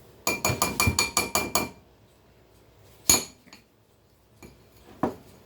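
Metal kitchenware struck in a quick run of ringing clinks, about six a second for a second and a half, followed by two single sharp knocks about two seconds apart.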